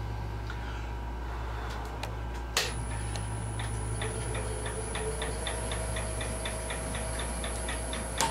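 Wood lathe switched on with a click about two and a half seconds in, then spinning with a steady high whine and a light rhythmic ticking, about three ticks a second, over a steady low hum.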